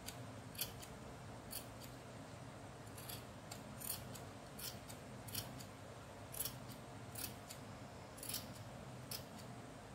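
Scissors snipping through wool yarn, trimming the excess off a yarn pom-pom to round it. About a dozen short snips come at an uneven pace, roughly one a second.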